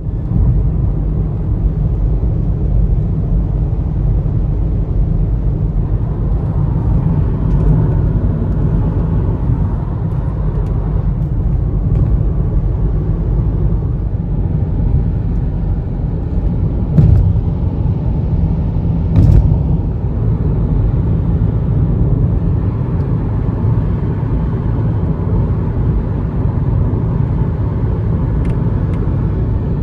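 Steady low rumble of a Boeing 787-8 jet airliner, even and unchanging, with two brief clicks near the middle.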